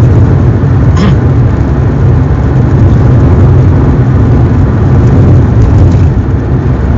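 Car engine and road noise heard from inside the cabin while driving: a loud, steady low rumble, with a brief click about a second in.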